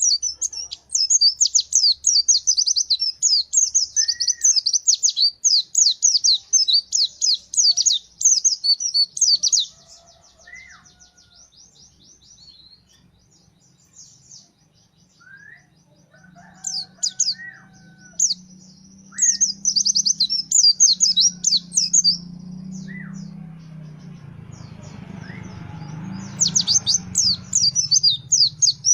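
White-eye (pleci, Zosterops) singing in long runs of fast, high chittering twitters, in three bouts with scattered single chirps and a few lower whistled notes between. A low hum comes up underneath about halfway through.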